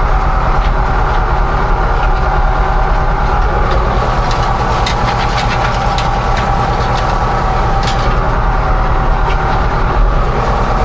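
Tractor engine running steadily under load while working a rotary tiller through soil, with scattered short ticks over it.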